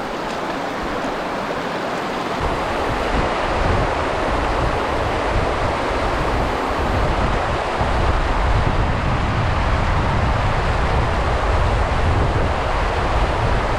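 A small river's water rushing steadily. From about two seconds in, wind buffets the microphone with a low rumble.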